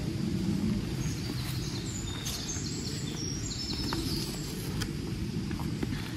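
Spade scraping and knocking faintly in loose soil as a trench is dug, over a steady low rumble, with birds chirping from about a second and a half in.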